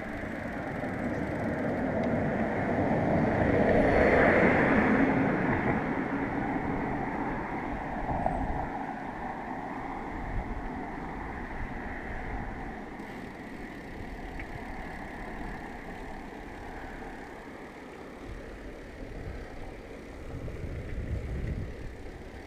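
Road noise from a bicycle moving along an asphalt road: a steady rush of tyres and wind, swelling to its loudest about four seconds in.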